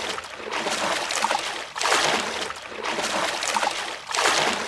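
Water splashing as a person in a shallow river throws handfuls up over himself with both arms, about four splashes a little over a second apart. A steady rush of flowing river water fills the gaps between them.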